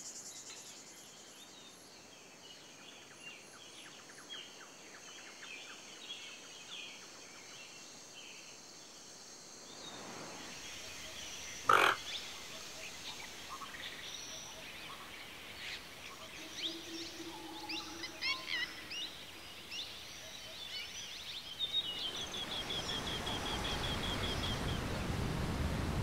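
Rainforest ambience of birds chirping and calling, with one sudden loud sound near the middle and a fast, even trill near the end. From about three quarters of the way in, the rushing of a waterfall swells up and grows louder.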